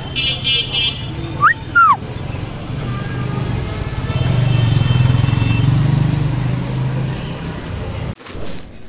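Town street traffic: a steady low vehicle hum that swells in the middle, with a brief rapid high ringing at the start and a short squeak that rises and falls about a second and a half in. The sound cuts off about eight seconds in.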